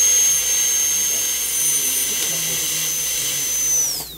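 High-speed dental air-turbine handpiece running with a steady high-pitched whine while finishing a Class IV tooth restoration. Near the end it is released and the whine falls steeply as the bur spins down.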